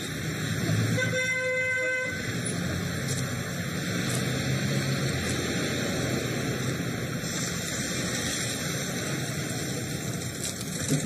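Street traffic noise, with a car horn honking once for about a second, about a second in.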